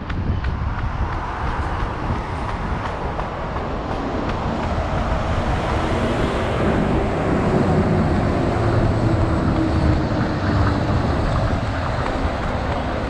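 Steady city road-traffic rumble, with a vehicle passing and its hum swelling through the middle.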